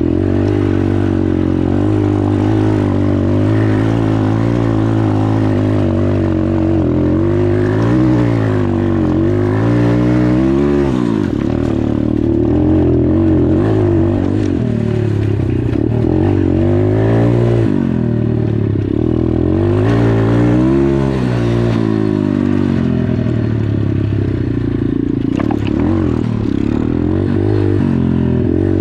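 Dirt bike engine running, its pitch rising and falling several times as the throttle is opened and let off, most clearly about eight to eleven seconds in and again around sixteen to twenty-one seconds.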